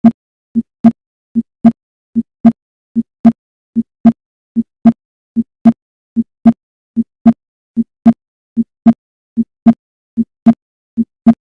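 Heart sounds at the aortic area heard through a stethoscope's diaphragm: a steady lub-dub, about 75 beats a minute. The second sound of each pair, from the closing of the semilunar valves, is louder than the first.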